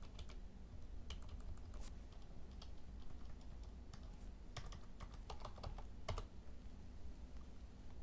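Computer keyboard keys being typed in short bursts of clicks, which stop about six seconds in, over a low steady hum.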